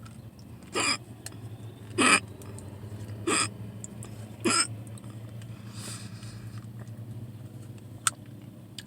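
A person hiccuping four times, evenly about a second and a quarter apart, in a bout of persistent hiccups.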